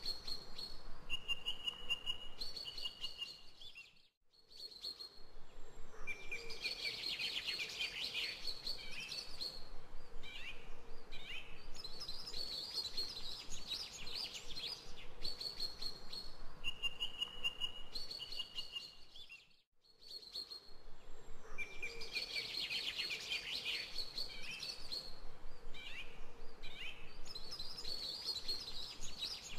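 Birds chirping and singing in short clear whistles and rapid chirp runs. The same stretch of birdsong repeats about every fifteen seconds, each time after a brief dropout, as a looped recording does.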